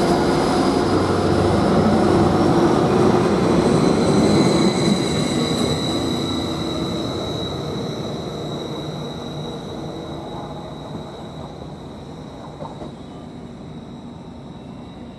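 Class 755 bi-mode multiple unit (Stadler FLIRT) pulling away from the station. Its rumble and a steady high whine hold for about five seconds, then fade steadily as the train moves off into the distance.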